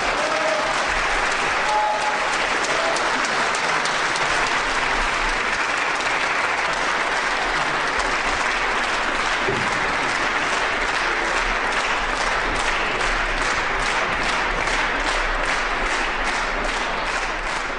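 An audience applauding. Over the last several seconds the clapping falls into a steady rhythm, in unison.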